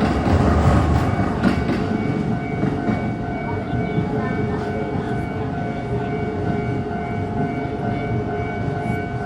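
A Keisei Main Line electric train running past over the level crossing. The wheel-on-rail noise is loudest in the first two seconds, then eases into a steadier rumble with a few steady tones running under it.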